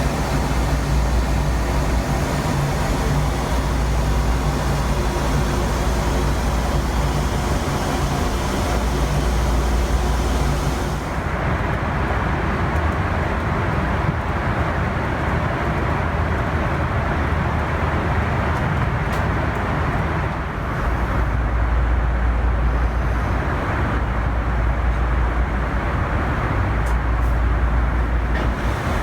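Boeing 747-400 airliner cabin noise in flight: a steady rush of engine and airflow over a strong low hum. About eleven seconds in, the sound changes abruptly and the higher hiss drops away, leaving a duller rush.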